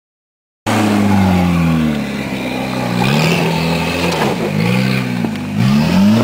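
Peugeot 306 1.9 turbo diesel engine revving up and down repeatedly as the car drives off-road, its pitch rising and dropping every second or so.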